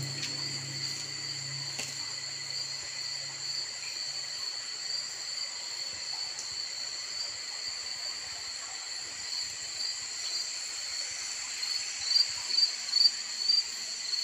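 Insects shrilling steadily in a high pitch, with a few louder, separate chirps near the end.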